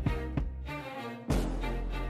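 Background music with sustained notes and a few sharp hits.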